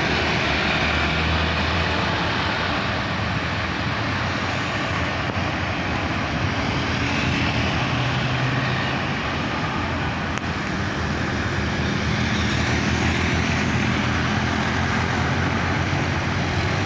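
Heavy diesel truck engine running as the truck passes close by, over steady road and traffic noise; the engine note shifts slightly in pitch midway.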